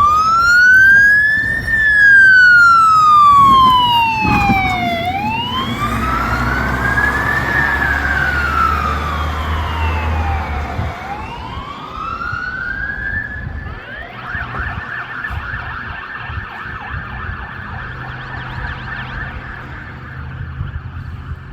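Fire engine siren (International chassis, Pierce body) sounding a slow wail that rises and falls about every five to six seconds, with the truck's engine rumbling beneath it midway. About two-thirds through, it switches to a fast warble at a steady high pitch.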